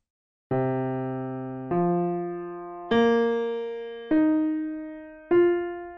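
Keyboard with an electric-piano sound playing five single notes, each struck and left to fade, about one every second, rising C, F, B-flat, E-flat, F. This is the root progression of a modulation from C up to F, three steps of a fourth and then a whole tone (5+5+5+2 = 17 semitones).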